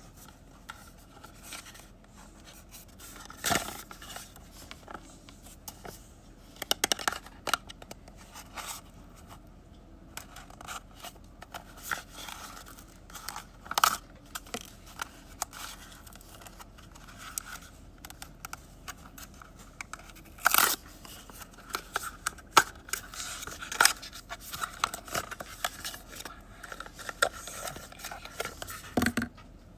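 Blind-box packaging being opened by hand: cardboard and plastic wrap rustling, tearing and scraping, with scattered sharp clicks and several louder snaps.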